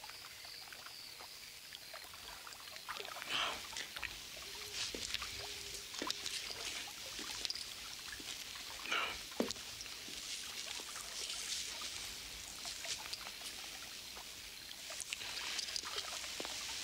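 Water in a pool gently lapping and trickling, with small irregular splashes; a couple stand out, about three and nine seconds in.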